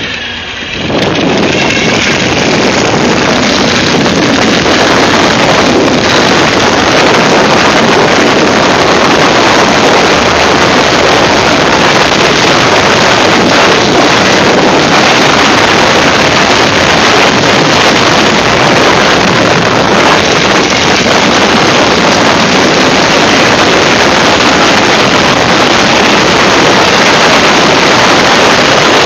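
Ural motorcycle's flat-twin engine running steadily on the move, largely buried under loud, steady wind rush on the microphone.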